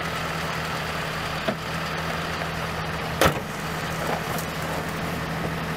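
Car engine idling steadily. A single sharp bang about three seconds in is the hood being slammed shut.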